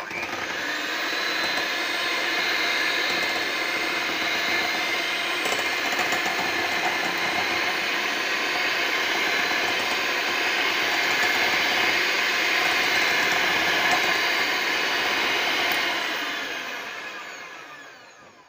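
Electric hand mixer running steadily, its twin beaters whirring through a runny mixture in a glass bowl. It starts abruptly and fades out over the last two seconds or so.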